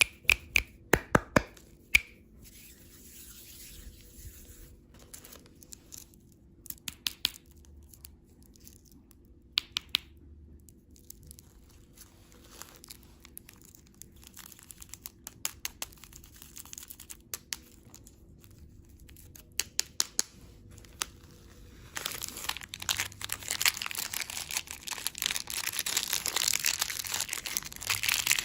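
Candy packaging being handled and unwrapped. There are sharp clicks and taps at first, then sparse crinkles, and then, for the last quarter, a steady run of plastic wrapper crinkling and tearing.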